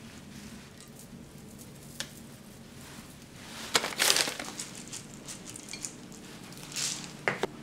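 Kitchen plating and handling noises: a few light clicks and a short crinkling rustle about four seconds in, with another couple of brief rustles near the end.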